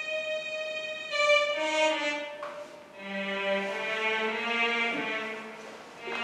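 Violin playing slow, sustained notes: a long held note, then a few changing notes, and a lower, fuller passage from about three seconds in.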